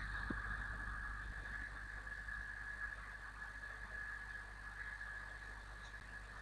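Room tone: a steady low hum with a constant faint high-pitched whine, and no other sound.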